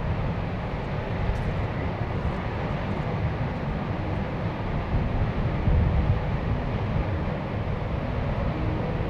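Mount Bromo's crater vent roaring as it pours out steam and volcanic gas: a steady, deep rumble that swells slightly a little past halfway.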